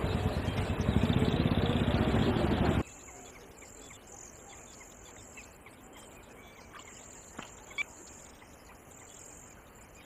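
Loud rushing outdoor background noise on a camera microphone that cuts off abruptly about three seconds in, leaving a faint outdoor ambience with a few faint high chirps and two sharp clicks about two-thirds of the way through.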